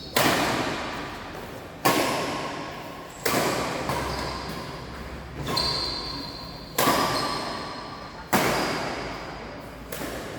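Badminton rally: rackets striking the shuttlecock about seven times, roughly one sharp hit every one and a half seconds, each ringing on in the echo of a large sports hall.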